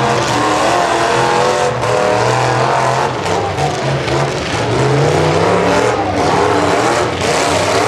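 Demolition derby pickup truck engines revving hard, their pitch repeatedly rising and falling as the trucks drive and ram each other, over a steady wash of noise.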